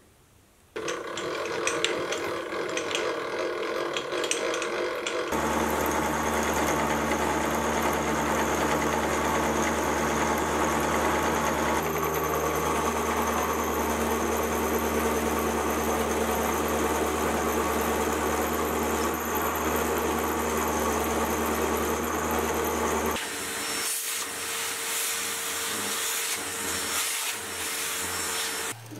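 Mini vertical mill running a dovetail cutter through mild steel: a steady motor hum with a cutting whine, starting about a second in and growing fuller about five seconds in. Near the end the motor hum drops away and a stiff brush scratches metal chips off the steel part in the vise.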